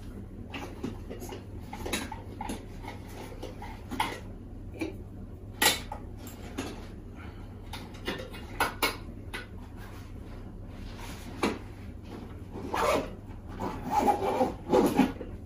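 Gear being packed into a soft nylon camping bag: fabric rustling and light knocks as items go in. Near the end come denser scraping strokes, the bag's zipper being pulled shut.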